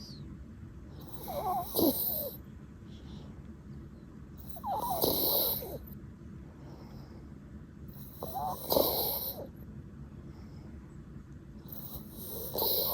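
Yorkshire terrier snoring: four snores about three and a half seconds apart, each lasting about a second, the last one starting near the end.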